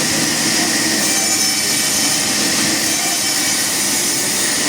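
Sawmill machinery running, a continuous steady noise without breaks.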